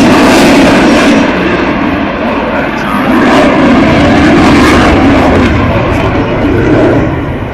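Jet aircraft engine noise, very loud and dense, swelling and dipping as the jet moves.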